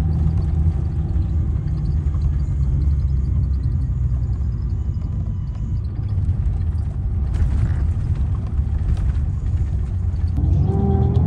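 Mercedes-Benz O-500R coach's diesel engine running with a steady low rumble, with a short hiss about two-thirds of the way in. Near the end the engine note rises as it revs up.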